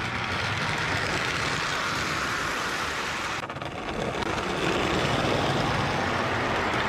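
Prewar American Flyer O gauge electric tinplate trains running on metal T-rail track, a steady rolling rumble. It gets louder about two-thirds of the way through as a train passes close by.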